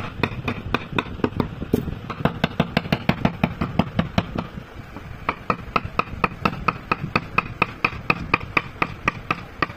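Rapid, even tapping, about five strikes a second, of a mallet driving a steel carving gouge along a groove in wood.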